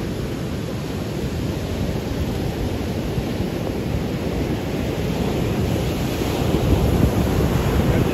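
Surf breaking and washing up the beach, with wind buffeting the microphone; the rush of water swells louder for a couple of seconds near the end.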